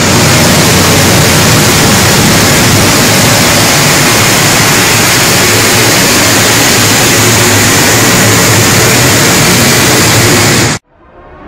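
Mercedes-Benz A250 running under load on a chassis dynamometer, recorded so loud that it clips into a harsh, steady wall of noise. It cuts off suddenly about a second before the end.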